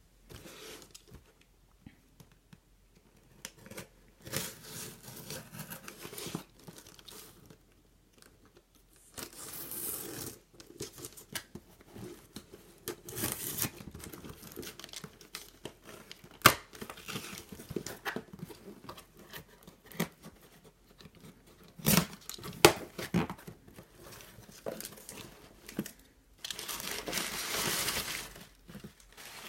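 Utility knife cutting through the tape on a cardboard shipping box, with scraping, tearing and crinkling as the box is handled, and a few sharp clicks. Near the end, crumpled packing paper inside the box rustles loudly.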